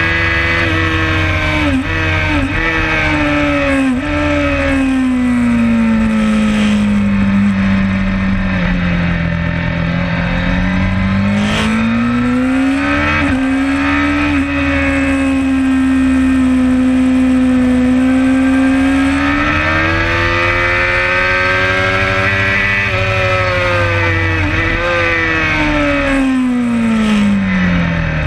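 Suzuki GSX-R600 K4's inline-four engine through a Werx aftermarket exhaust, heard from on the bike at track speed. The revs sink slowly, climb, hold steady, climb again and fall away near the end, with a few brief dips in pitch at gear changes. A steady rushing noise runs underneath.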